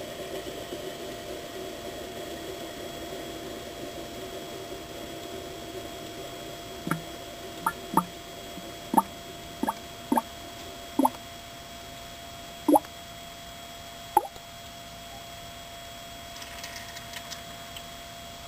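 Drops of water plopping into liquid, about nine of them over seven seconds, each a short plop falling in pitch. Beneath them is the steady hum of the running centrifuge.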